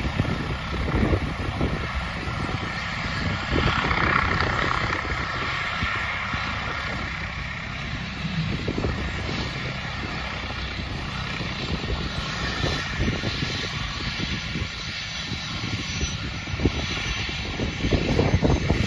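Twin-engine air-ambulance helicopter running on the ground, a steady turbine and rotor noise with an uneven low rumble that swells and eases.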